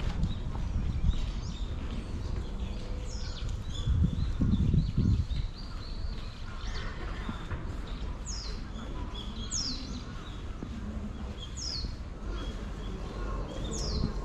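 Birds calling outdoors: short, high chirps that slide downward, repeated every second or two, over steady outdoor background noise. A louder low rumble about four to five seconds in.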